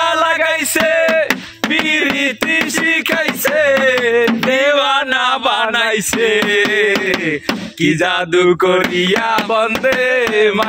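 Music with a male voice singing long, held notes.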